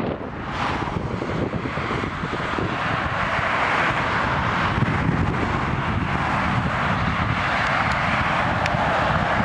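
Strong, gusty thunderstorm inflow wind: a steady rushing noise with gusts buffeting the microphone, mixed with the hiss of cars passing on the road.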